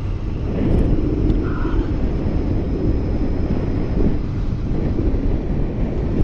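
Honda Fireblade 900 inline-four motorcycle cruising at road speed: a steady low rush of engine and wind noise buffeting the microphone.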